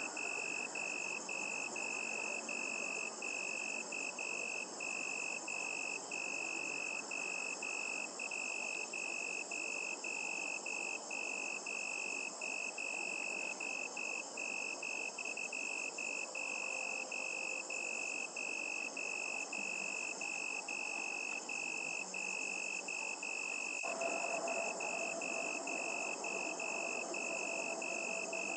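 Crickets chirring in a night chorus: one steady high-pitched trill broken by short gaps about twice a second, over a soft hiss. A faint, steady low hum comes in near the end.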